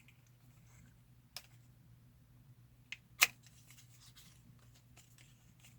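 Three short clicks from cosmetic packaging being handled, the sharpest about three seconds in, over a faint low steady hum.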